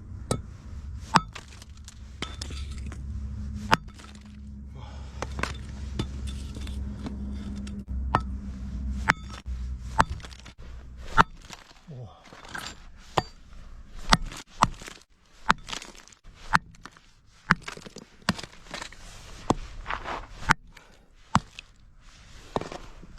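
Iron hammer smashing lumps of coal into small pieces: a run of irregular sharp knocks and cracks, with broken chunks clinking, coming faster in the second half. A low rumble runs under the first ten seconds or so.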